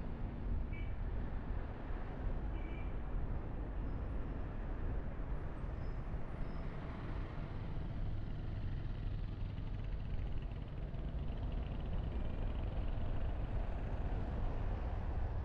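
A car driving along a road: steady engine and tyre rumble, with two faint short high chirps in the first three seconds.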